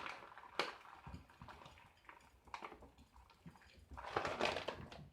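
A few faint clicks and knocks, spread out, with a small cluster near the end, from hands working a soap cutter while its new cutting wire is being tightened.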